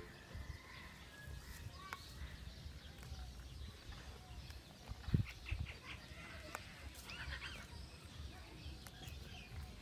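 Goats grazing close by, with scattered small clicks and rustles over a steady low rumble. A single low thump about five seconds in is the loudest sound, and a few bird chirps come near the end.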